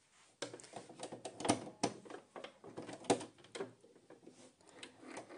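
Hands working at a sewing machine's needle and presser-foot area while threading it: a run of irregular clicks and taps from plastic and metal parts, thinning out near the end. The machine's motor is not running.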